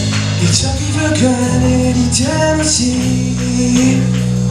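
Live rock band playing, with a singer holding long notes over steady bass and guitar.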